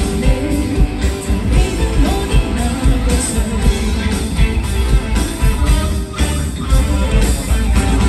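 A live band plays a pop song through a concert PA: drums, electric guitar and keyboard under a female lead vocal.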